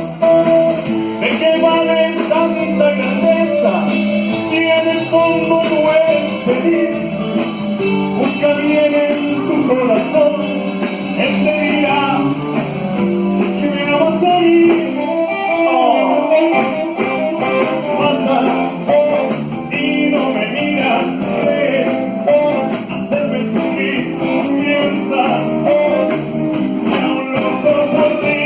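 A live band playing a song with guitar and a steady beat.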